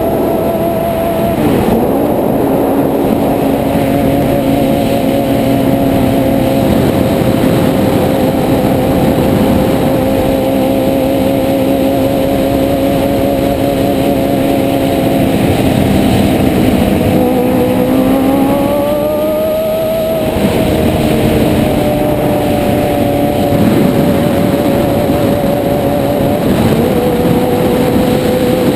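Sport motorcycle engine running at road speed under heavy wind and road rush. The engine note climbs as the bike accelerates about two-thirds of the way through, then settles back to a steady cruise.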